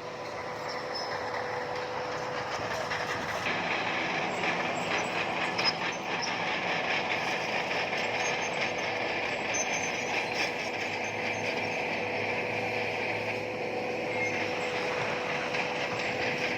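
Bulldozer running with a steady rattle and clatter of its steel crawler tracks, growing louder about three and a half seconds in.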